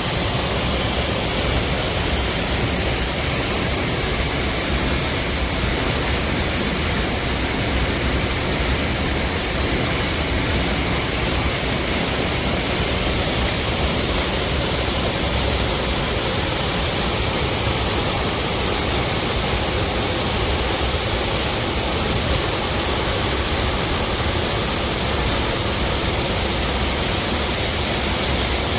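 Steady, unbroken rushing noise at an even level, with no distinct events.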